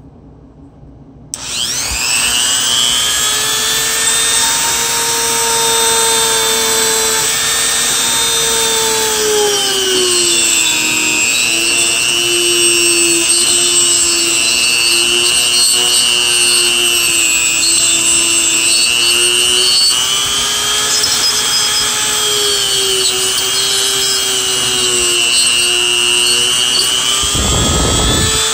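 Handheld rotary tool switching on about a second in and running steadily with a high whine, its bit grinding at an e-bike hub motor side cover. The whine dips in pitch now and then as the bit is pressed into the work. There is a low thump near the end.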